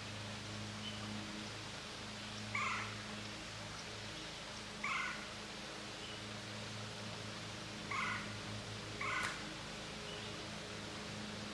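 An animal calling four times, each call short and dropping in pitch, the last two about a second apart, over a steady low hum.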